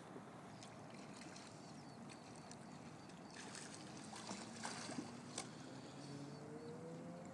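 Kayak paddle strokes with water lapping and splashing against the hull. A louder run of splashes and drips comes from the paddle about halfway through. Faint low droning tones come in during the second half.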